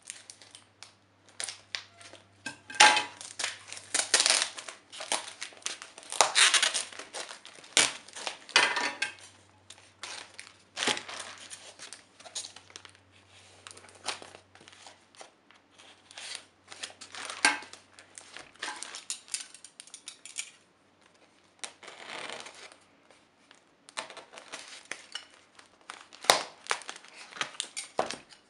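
Scissors cutting and scraping through packing tape on a cardboard box, in irregular strokes with rustling and crinkling of tape and cardboard, loudest in the first third.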